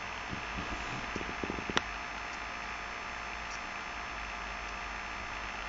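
Steady low hum and hiss of background room tone, with a short run of small clicks about a second and a half in.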